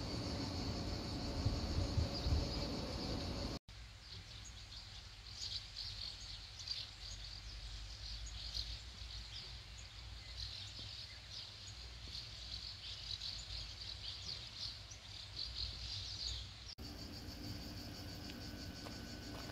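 Outdoor ambience of insects chirping in a high-pitched chorus that pulses unevenly. A low rumble sits under it for the first few seconds, and the background changes abruptly twice.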